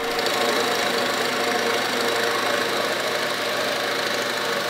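Harbor Freight drill press running steadily, a 2 1/8-inch Forstner bit boring into a block of wood: an even motor hum under the cutting noise of the bit.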